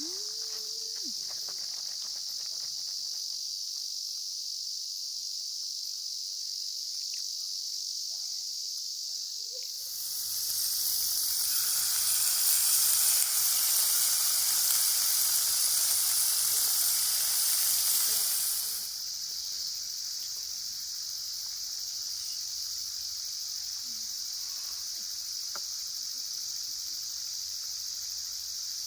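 Steady, shrill insect chorus of summer crickets. About ten seconds in, a loud, even hiss starts suddenly. It lasts about nine seconds, covers the insects, and then stops abruptly.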